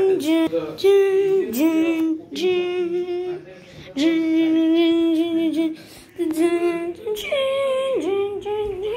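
A child's voice singing a wordless tune in long held notes, phrase after phrase with short breaks, some notes sliding down at their ends.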